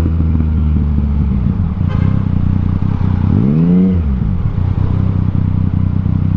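Yamaha Tracer 900's CP3 inline-triple engine through an Akrapovic full exhaust system, running steadily under way, with one rev that rises and falls about three to four seconds in.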